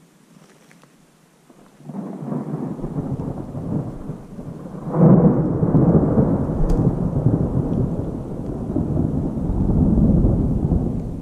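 Rolling thunder: a low rumble comes in about two seconds in, swells to a sharp peak around five seconds, and rolls on for several seconds before easing off near the end.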